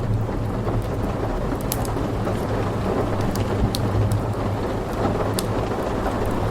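Steady heavy rain with a continuous low rumble of thunder, and a few sharp crackles from a wood fire in a fireplace scattered through it.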